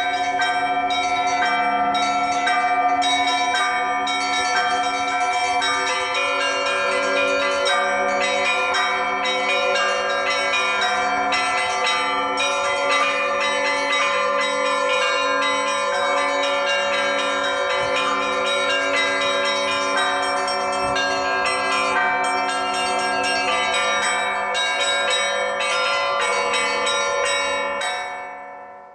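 A set of Russian church bells cast by the LITEX foundry, rung together in a full zvon. Frequent quick strikes on the smaller bells ring over the held tones of the larger bells, and the ringing fades out near the end.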